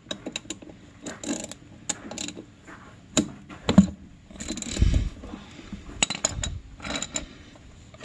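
Ratchet wrench clicking in short, irregular strokes, with knocks of metal tools, as a drain plug on a tractor's front differential is worked loose.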